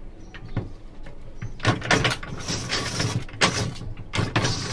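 Hand-turned cast-iron ice-shaving (gola ganda) machine shaving a block of ice: after a few light clicks, rough scraping strokes of the blade through the ice begin about a second and a half in, coming about twice a second.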